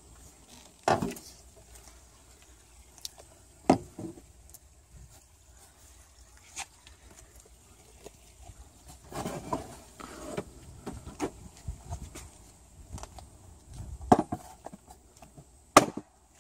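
Sharp knocks and clatter of a wooden 2x4 bed frame being handled: single hard knocks about a second in and near four seconds, a stretch of clattering and rustling in the middle, and two loud knocks near the end.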